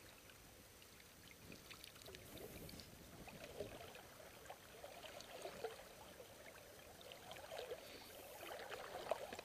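Faint water lapping and trickling against the hull of a small boat as it moves and turns, with scattered small splashes.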